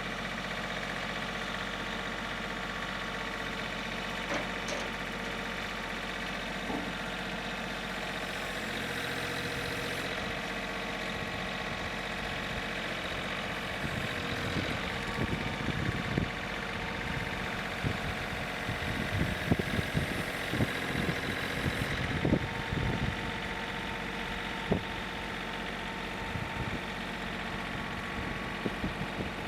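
An engine idling steadily, with a run of irregular knocks and clunks in the middle of the stretch and a few more near the end.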